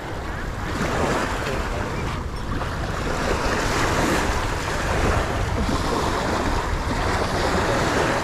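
Small waves washing onto a pebble beach, with wind buffeting the microphone.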